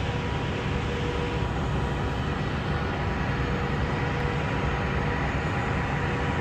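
Large diesel engines of heavy equipment running steadily, a low rumble with a faint steady whine over it.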